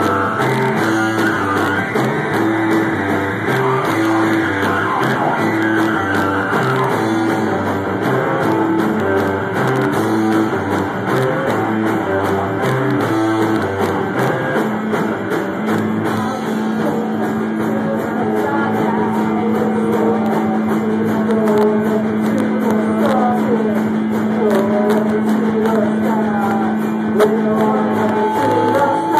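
A rock band playing live: guitar over a drum kit with cymbals. About halfway through, a low note is held steady for roughly twelve seconds.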